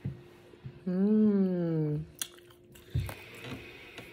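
A person's drawn-out hummed 'mmm' while eating fries, about a second long, rising slightly then falling in pitch, with faint chewing. Two soft knocks, one at the start and one about three seconds in.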